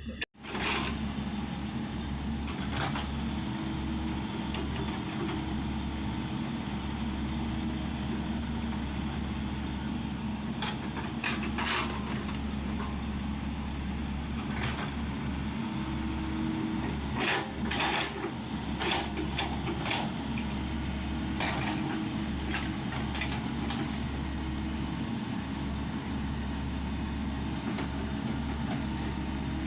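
Excavator's diesel engine running steadily, with several sharp knocks about midway.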